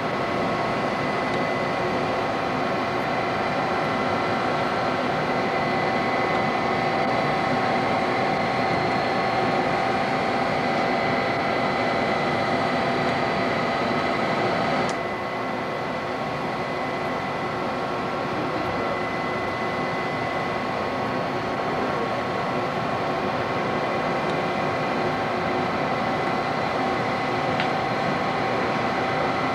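Steady hum and whir of computer equipment and room ventilation, with several steady whining tones. About halfway through it clicks and becomes slightly quieter.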